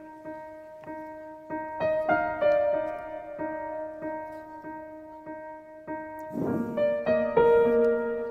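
Background piano music with a steady pulsing beat and held chords, with fresh chords coming in about two seconds in and again near the end.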